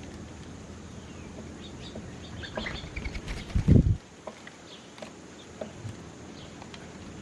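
Small birds chirping in short, scattered calls over a steady low rumble. A louder low rumble swells about three and a half seconds in and cuts off abruptly at about four seconds.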